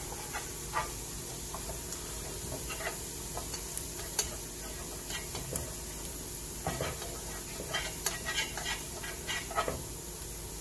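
Minced garlic sizzling in oil in a nonstick frying pan, stirred with chopsticks that tap and scrape against the pan at scattered moments, more often in the last few seconds.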